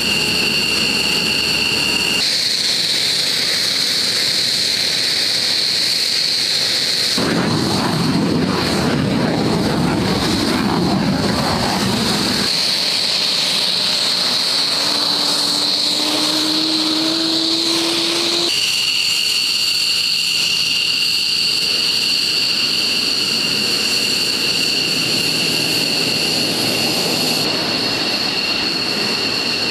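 F-15E Strike Eagle's twin jet engines running on the ground, a loud steady high-pitched turbine whine over engine rush. The sound shifts abruptly several times, with a stretch of deeper rumble in the middle.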